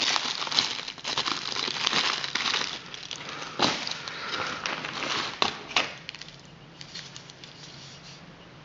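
Crinkling and rustling of a clear plastic bag and a torn paper firecracker wrapper being handled, with many small crackles and clicks. It dies down about six seconds in.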